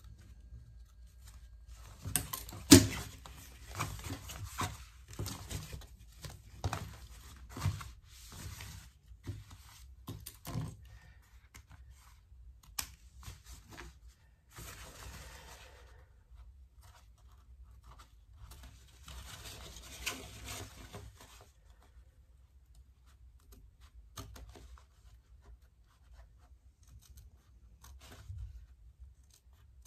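Small thread snips clipping loose threads on a sewn raincoat: a run of sharp snips and clicks, the loudest about three seconds in, then two stretches of the raincoat fabric rustling as it is handled, and a few last snips near the end.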